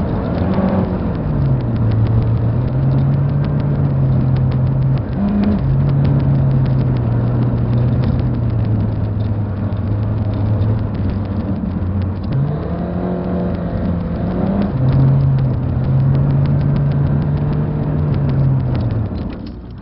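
Car engine running on the move, its pitch holding steady and then shifting: a brief rise and fall about five seconds in, a jump up around twelve seconds in that climbs further before dropping back, then sinking lower until the sound fades near the end.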